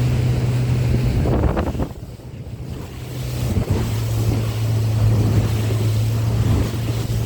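Small boat's outboard motor running steadily under way, a low even hum, with wind buffeting the microphone and water rushing past the hull.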